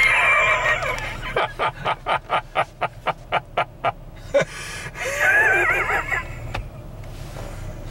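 Men laughing inside a car: high-pitched laughing at first, then a run of quick breathy laugh pulses about five a second, then more high-pitched laughing about five seconds in. A low steady engine hum runs underneath.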